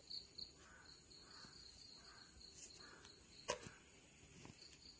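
Near silence with faint outdoor insect chirping, a pulsing high trill repeating through, and a single sharp click about three and a half seconds in.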